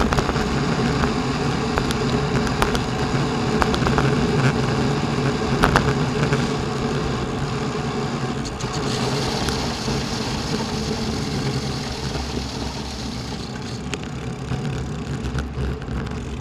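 Steady wind rumble and road noise on a bicycle-mounted camera while cycling along a road, with a few sharp clicks.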